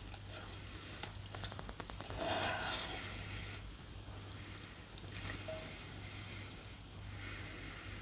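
A person chewing chicken close to a microphone: a run of soft wet mouth clicks about a second in, then heavy breaths through the nose about two seconds in and twice more later, over a steady low electrical hum.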